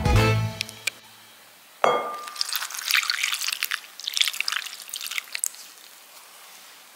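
Milk poured onto bread cubes in a glass bowl, splashing and trickling for about three seconds before tapering off. Just before the pour there is a brief glassy clink.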